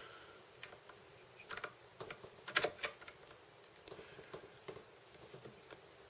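Irregular light clicks and taps from small hard objects being handled on a desk, with a few clustered about a second and a half and two and a half seconds in.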